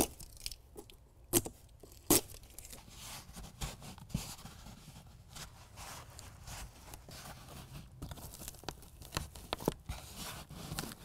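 Adhesive backing being peeled off hook-and-loop strips, and the strips pressed onto a carpet bed liner's bulkhead. Three sharp crackling snaps come in the first couple of seconds, followed by softer rustling and small clicks of handling.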